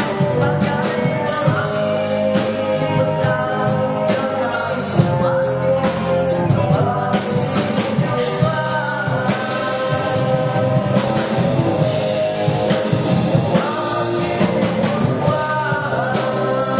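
Live band playing a song with a singer, rock-style, with drum hits throughout.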